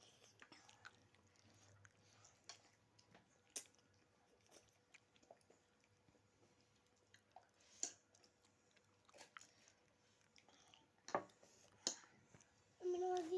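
Faint chewing of chicken macaroni, with a few sharp clicks scattered through it. A short humming sound comes near the end.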